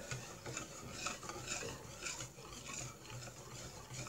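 Whisk stirring crêpe batter in a bowl, mixing in the melted butter just added: a fairly faint, irregular run of scratchy strokes, a few a second.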